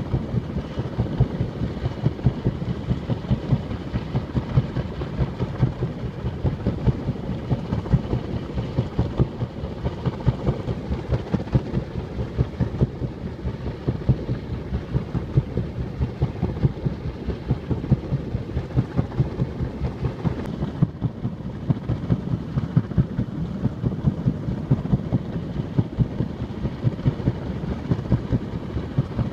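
Crashed helicopter's engine still turning with its rotor blades broken off: a steady low rumble with a rapid, regular thumping.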